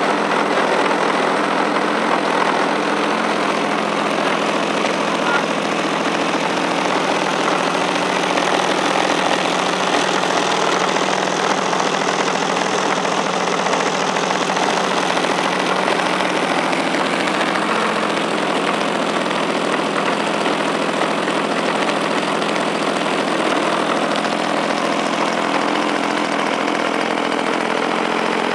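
DLE 55 single-cylinder two-stroke petrol engine with its propeller running steadily at a constant speed, being broken in on a large model aircraft.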